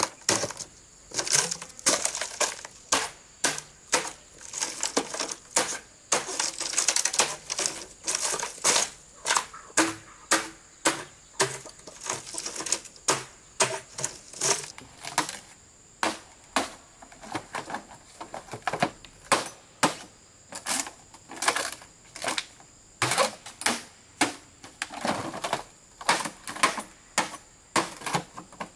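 Green bamboo pole being split lengthwise into strips: a steady run of sharp cracks and knocks, about two or three a second, as the split is worked along the pole.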